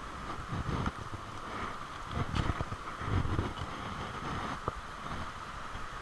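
Wind buffeting the microphone in irregular low rumbling gusts, over a steady high hiss, with one light click about three-quarters of the way through.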